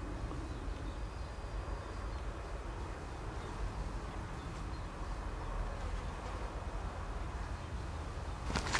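Steady outdoor background noise, a low rumble under an even hiss, with a few sharp rustling clicks near the end.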